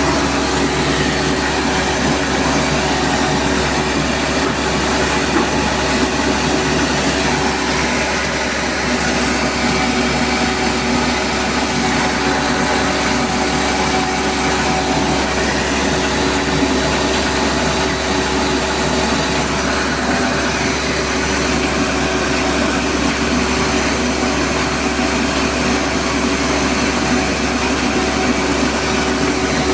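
Rice milling machine running steadily: a loud, constant mechanical din with a steady hum under it.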